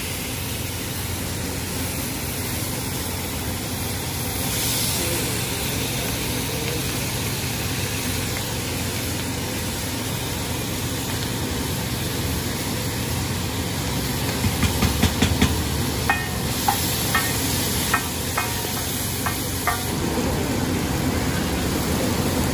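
Butter, chopped onions and tomatoes sizzling steadily on a large flat street-stall griddle (tawa). Partway through comes a run of about a dozen sharp taps, quick at first and then more spaced out.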